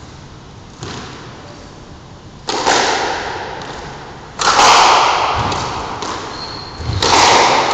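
Squash rally: a light knock, then three loud cracks of the racket and rubber ball striking the court walls, about two seconds apart. Each crack rings on and fades slowly in the enclosed court.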